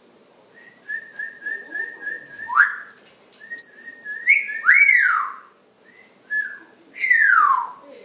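African grey parrot whistling. It starts with a run of about six short, even notes, then gives loud swooping whistles that rise and fall, and ends with a long falling whistle near the end.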